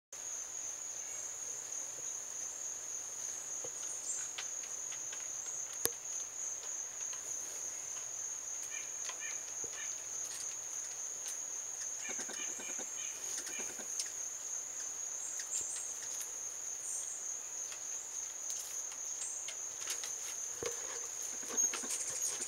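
Insect chorus singing in the woods: one steady, high-pitched, evenly pulsing drone that does not let up.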